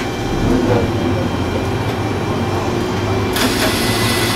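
Diesel railcar running slowly, a steady low engine and running-gear rumble heard from inside the cab. About three seconds in, a loud steady hiss starts suddenly and carries on.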